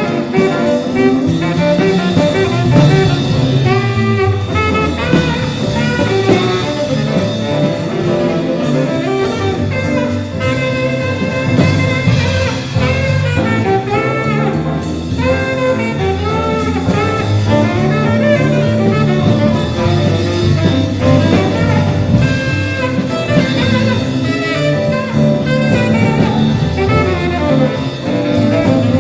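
Student jazz ensemble playing live: saxophones and brass carry shifting melodic lines over a bass line and a drum kit keeping a steady beat with cymbals.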